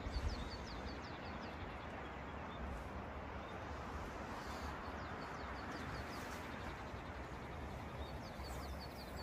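Small birds chirping on and off in short high calls, over a faint steady outdoor hiss with a low rumble.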